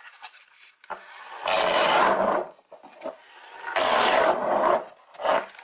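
Battery-powered foam-board toy car with a small electric motor driving its wheels through a rubber-band pulley belt, running and rattling as it goes, in grating stretches of about a second each.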